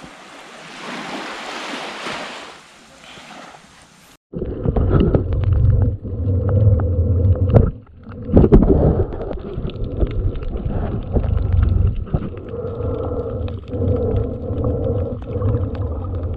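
Small waves washing on a sandy shore, swelling briefly. About four seconds in it cuts to underwater sound through an action camera's housing while snorkeling: a loud, muffled low rumble of moving water with many small clicks.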